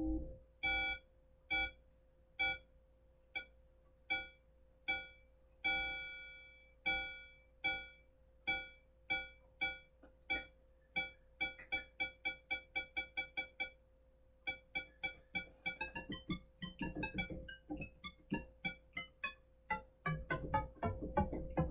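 Arturia MiniFreak synthesizer playing short, quickly decaying plucked notes, about one a second at first, then speeding up to several a second about ten seconds in. Later comes a denser run of notes whose upper tones sweep up and then down, all over one steady held tone.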